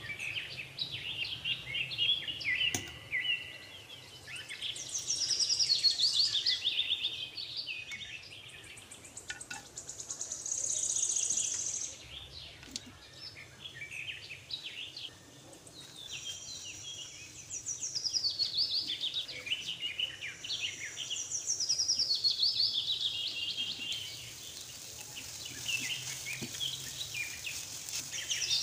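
Birds chirping and trilling, with many quick high calls overlapping in waves that swell and fade every few seconds.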